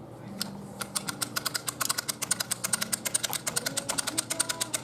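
Crossbow crank cocking device ratcheting: a rapid, even clicking of about eight clicks a second that starts about a second in.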